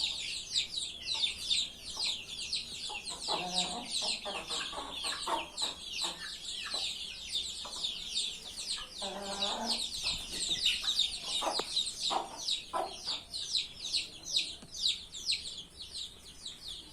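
Chickens calling: a dense stream of short, high, falling peeps throughout, with two longer, lower hen calls about three and a half and nine seconds in.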